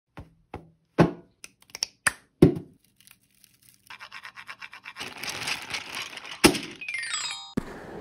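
Sharp hits and knocks on a snare drum muffled with a cloth and with old drumsticks, then a few seconds of fast rattling taps and scraping with one loud hit. Near the end a quick downward run of ringing notes on a glockenspiel.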